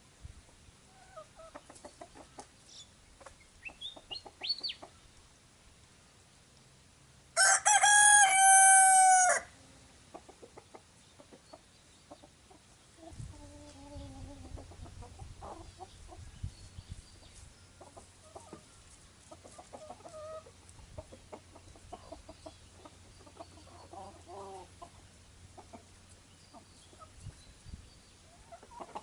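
A rooster crows once, loudly, for about two seconds, a quarter of the way in; hens cluck and call softly before and after it. A low steady hum joins under the clucking about halfway through.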